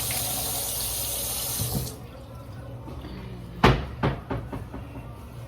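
Kitchen tap running, shut off about two seconds in. Then comes one loud knock and a few lighter knocks.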